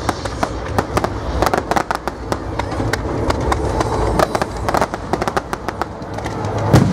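Fireworks display: a dense, rapid crackling of many small reports over a continuous low rumble of bursts, with a heavier bang near the end.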